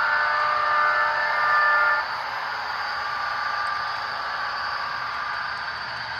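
Sound from an HO-scale Santa Fe Budd RDC model's ESU LokSound decoder as the railcar passes close by: a held multi-tone horn that cuts off about two seconds in, then a steadier running sound.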